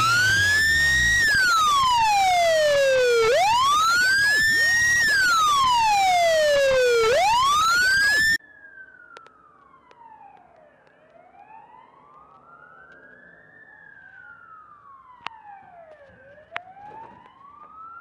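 A loud siren wailing up and down about every four seconds cuts off suddenly about eight seconds in. A much fainter police siren follows, wailing up and down more slowly, with a few clicks over it.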